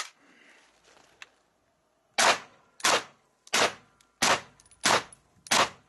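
Suppressed Desert Tech MDR rifle in 6.5 Creedmoor firing six shots about two-thirds of a second apart, starting about two seconds in, after a single sharp crack right at the start. A faint ringing hangs between the shots.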